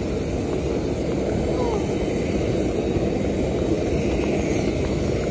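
Wind rushing on the microphone over the steady drone of a nearby regional jet on the apron.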